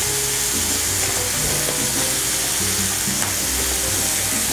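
Food frying on a gas stove, sizzling steadily: a ground-beef burger patty on a hot cast-iron grill pan, with onions and an egg frying in the pans beside it.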